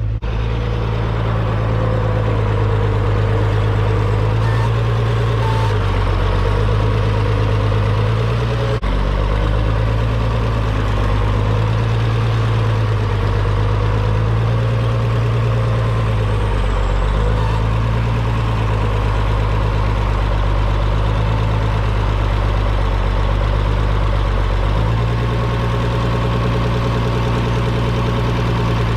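Farmall 806 tractor's six-cylinder diesel engine running steadily, its tone shifting up and down a little as it works.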